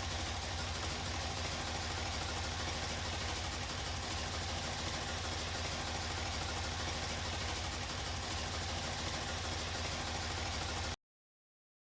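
BMW R90S's air-cooled flat-twin engine idling steadily, stopping abruptly near the end.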